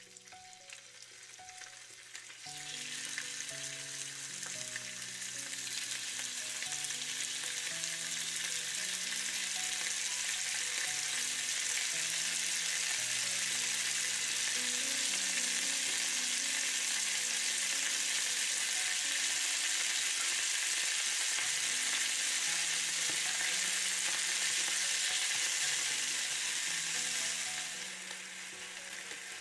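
Beef pieces frying in hot oil in a nonstick pan: a steady sizzle that starts a couple of seconds in, grows louder as more meat goes in, and eases off near the end.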